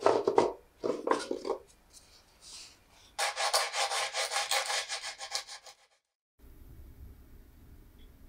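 Sandpaper rubbed back and forth by hand over a painted wooden cabinet, quick rasping strokes about five a second that stop abruptly. Before that, two shorter bursts of rough scraping.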